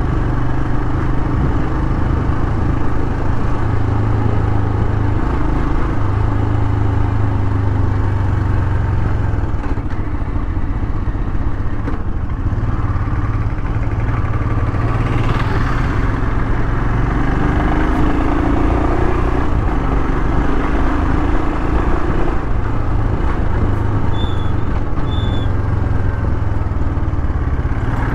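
Motorcycle engine running steadily while riding at road speed, with wind and tyre noise on the handlebar-mounted microphone.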